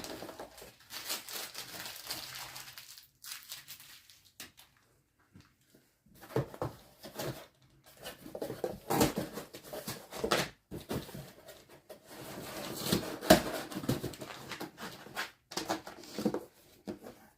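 Irregular rustling, crinkling and light knocks from packaging and boxed parts being handled and set down, in short bursts with a pause of a couple of seconds near the start.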